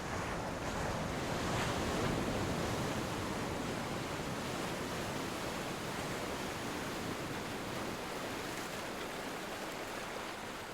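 Steady rushing of running water, an even hiss with no distinct calls or knocks, easing slightly toward the end.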